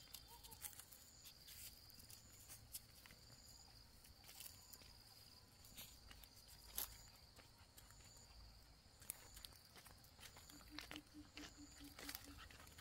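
Faint insect trilling, a high thin sound repeating in stretches, with scattered light clicks and soft footsteps on a dirt path.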